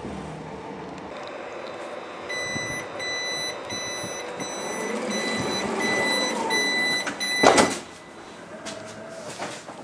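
Regional electric train's passenger-door warning beeper sounding a high, repeated beep about twice a second over the train's running hum. It stops about seven and a half seconds in as the sliding door moves with a loud clunk.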